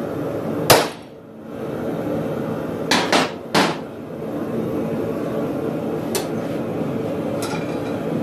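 Hammer striking a hot cut chisel splitting the nib of a red-hot tong jaw held in a vise: one sharp ringing blow under a second in, then three lighter metal clanks close together around three seconds in. Under it all runs the steady noise of a running forge.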